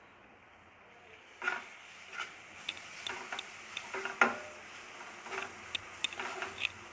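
A steel spoon stirring vegetables and spice paste in a non-stick kadai, clicking and scraping irregularly against the pan. The stirring starts about a second and a half in.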